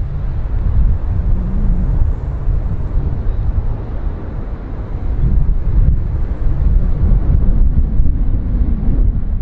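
Low, loud rumble of a large aircraft's engines, with wind buffeting the microphone.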